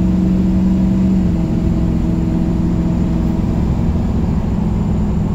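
Turbocharged big-cam engine of an S10 pickup pulling under throttle, heard from inside the cab. The engine note drops slightly in pitch about a second in, then runs on steadily.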